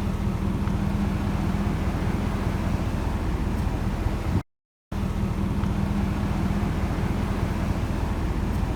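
A steady low hum, like a vehicle engine idling, with a held tone under it. Just past the middle it cuts to silence for about half a second, then returns unchanged.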